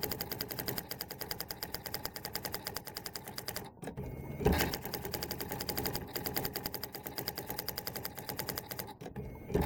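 Swintec 1146cm electronic daisy-wheel typewriter printing automatically, a rapid, even run of typing strikes. It pauses briefly twice, and each pause ends in a louder thud before the strikes resume.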